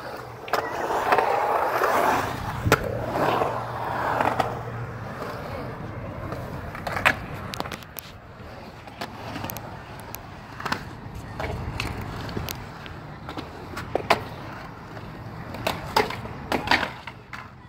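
Skateboard with urethane wheels rolling and carving across a concrete bowl, loudest in the first four seconds. Sharp clacks of the board striking the concrete come every few seconds.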